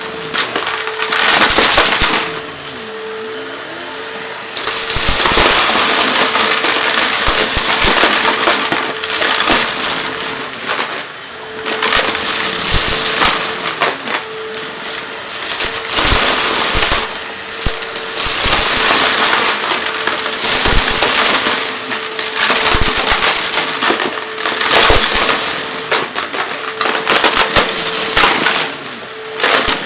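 Vacuum cleaner running with a steady whine while sucking up crunchy debris. Loud bursts of crackling and crunching come and go every second or two as the head passes over it.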